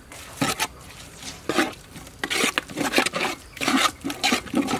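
A spoon stirring and scraping in a large aluminium pot, working pounded curry paste and kaffir lime leaves into a coconut-cream curry base, in a quick run of irregular strokes.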